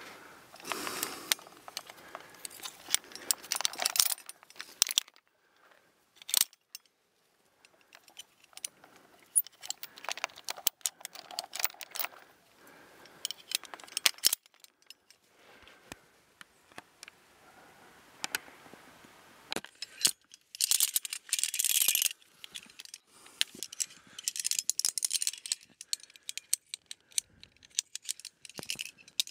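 Steel carabiners of a via ferrata lanyard clinking and clicking against an iron anchor chain as they are unclipped and clipped, in irregular clusters of sharp metallic clicks.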